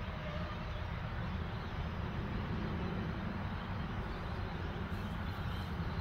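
Steady low rumble of outdoor background noise, with no distinct event standing out.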